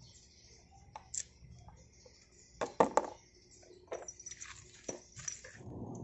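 A screwdriver clicking and clinking against a motorcycle battery's terminal screws as the wires are fastened. Scattered metallic clicks, loudest in a quick cluster a little before halfway. A steady low rushing noise takes over near the end.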